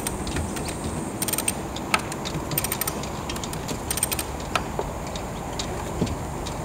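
Ratchet mechanism clicking in short rapid runs, about one run every second and a half, with a few single clicks between, as a sailboat's mast is swung up on its tabernacle.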